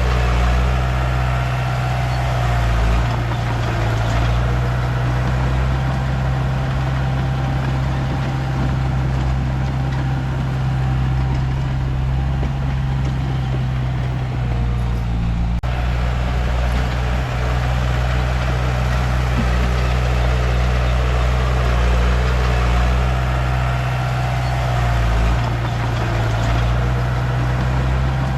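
Komatsu D31P bulldozer's diesel engine running steadily at a constant pitch, with small shifts in load.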